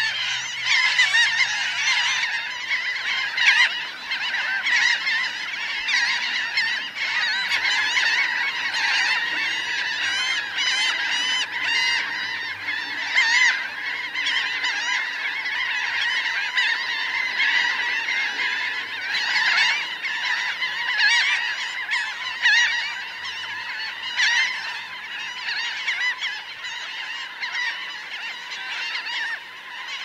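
A large flock of laughing gulls calling close up: a dense, continuous chorus of many overlapping cries.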